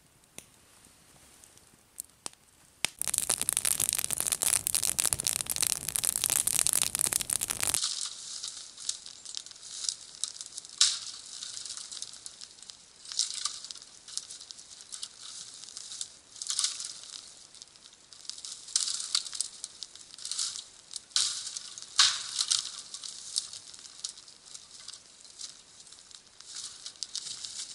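Dry dead spruce branches cracking and snapping as they are broken off the trees for firewood, in irregular bursts of sharp snaps. Near the start, a loud steady hiss lasts about five seconds.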